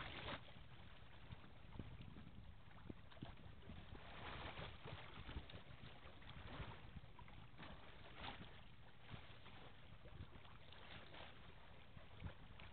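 Near silence: faint wind on the microphone, swelling in soft gusts every few seconds.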